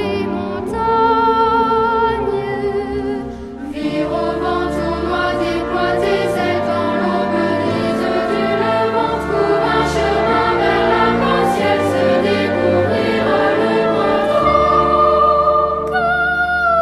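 Background music: a choir singing with orchestral accompaniment, swelling fuller about four seconds in.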